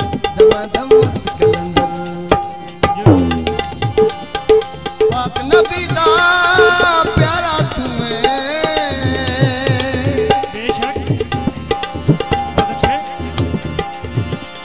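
Live Punjabi folk devotional music: a harmonium with a fast hand-drum rhythm. About five seconds in, a voice holds a long wavering note without words, fading out after about ten seconds.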